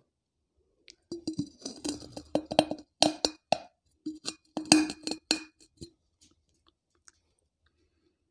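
Teeth biting and crunching the rim of a soaked terracotta clay piggy bank (gullak) close to the microphone: a run of sharp cracks and crunches starting about a second in and dying out after about five seconds into a few faint clicks. The fired clay is still very hard.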